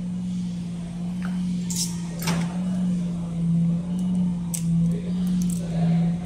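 Steady low electric hum from bench test equipment. From about two and a half seconds in it swells and fades about once a second. A few brief rustles and clicks come from the fibre-optic cable being handled.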